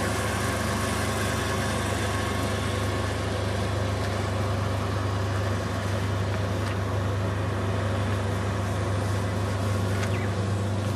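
Steady, unbroken low machine hum, a constant drone with faint steady tones above it, from running machinery.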